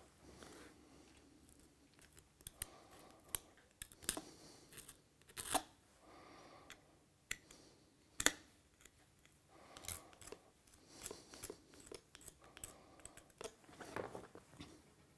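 Knife cutting and scraping along lamb rib bones on a cutting board: quiet, irregular sharp clicks and short scrapes, the loudest about five and a half and eight seconds in.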